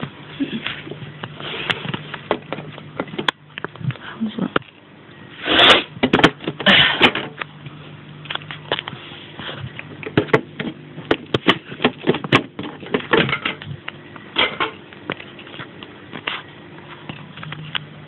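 Handling noise: irregular rustling, clicks and knocks, with two louder breathy rushes about six and seven seconds in, over a low steady hum.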